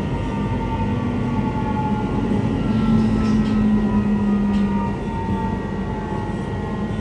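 Queensland Rail IMU 120-series electric train heard from inside the carriage: steady running noise under the whine of its Adtranz traction propulsion. The whine glides slowly down in pitch as the train slows for its next stop.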